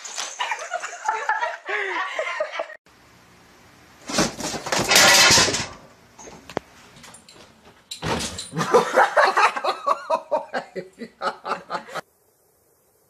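People laughing in two stretches, the later one a quick run of pulses, with a loud harsh burst of noise between them; it all stops short about a second before the end.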